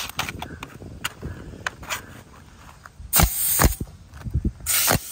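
Pneumatic coil roofing nailer fastening ridge cap shingles: a few sharp clacks, then louder blasts about three seconds in and near the end.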